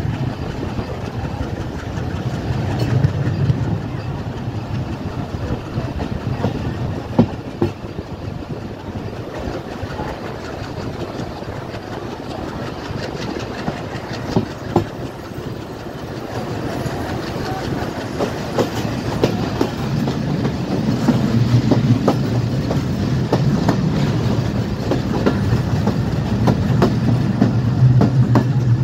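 Diesel-hauled passenger train running along the line, heard from an open coach window: steady wheel and track noise with scattered clicks over the rail joints. A low drone swells briefly a few seconds in and grows louder over the last third.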